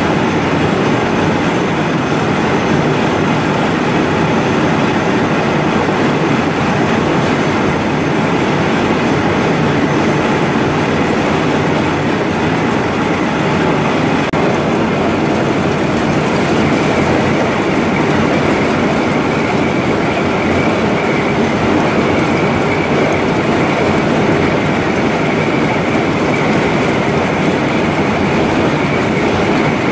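Large lathe deep-hole boring an Inconel 625 bar, with the workpiece turning and flood coolant gushing out of the bore with the turnings: a loud, steady machining and splashing noise. A steady high whine comes in about halfway through.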